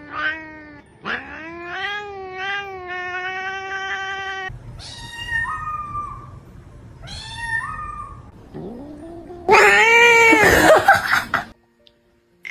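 A cat yowling in a series of long, wavering meows, the last one loudest, about ten seconds in.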